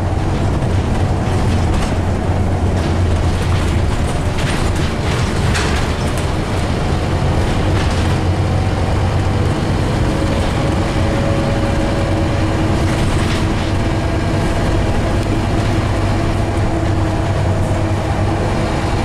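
Scania OmniCity N230UD double-decker bus heard from inside the saloon while under way: a steady low diesel engine drone with road noise and rattling of the interior fittings. A faint whine rises briefly about halfway through.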